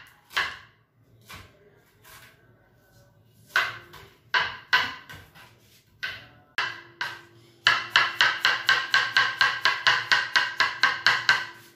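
Kitchen knife chopping on a plastic cutting board: a few scattered cuts, then fast, even chopping, about five strokes a second, for the last four seconds or so.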